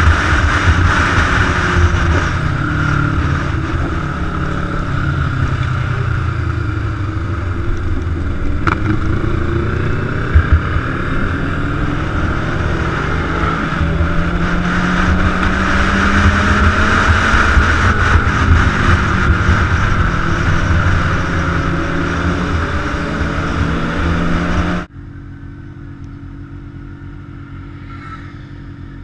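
Large-displacement motorcycle engine running under way, its pitch rising and falling as the rider speeds up and eases off, with wind hiss on the microphone and a brief sharp knock about ten seconds in. Near the end the sound cuts off abruptly to a much quieter steady drone.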